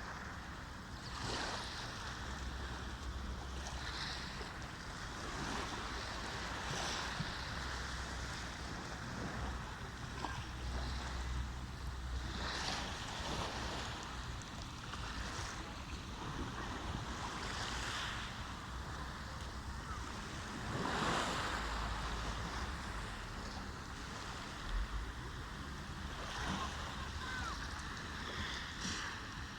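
Sea waves washing in, swelling and falling back every few seconds, with wind buffeting the microphone.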